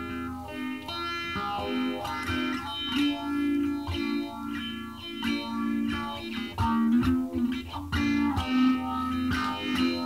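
Background music: an Ibanez Black Beauty electric guitar played through effects, picked notes ringing over held lower notes.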